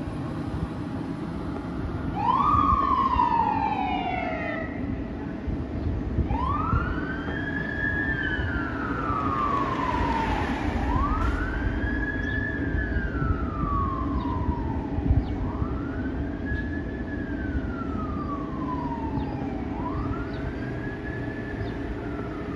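Passaic Fire Department Engine 1's siren starts up about two seconds in, a quick rise and slow fall, then settles into a steady wail rising and falling about every four and a half seconds as the responding fire engine drives off. A steady low rumble of engine and street traffic runs underneath.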